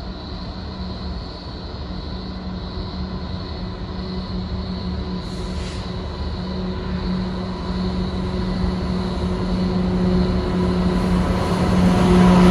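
Diesel locomotives hauling a coal train approach and pass, a steady engine drone that grows louder as the lead locomotive draws level near the end. A brief hiss about five seconds in.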